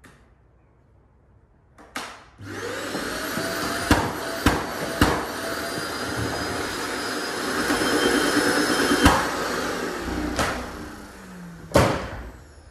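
Wet/dry shop vacuum switched on about two seconds in, its whine rising as the motor spins up. It then runs steadily, sucking sawdust off a sanded timber floor, with several sharp knocks along the way. Near the end it is switched off and the motor winds down with a falling whine.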